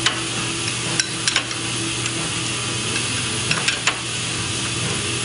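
Wrench turning the nut of a bearing-puller tool in a Toyota 8-inch clamshell differential carrier, giving a few sharp metal clicks as the wrench works the nut, over a steady hiss. The tool is drawing the worn needle bearing out of the carrier.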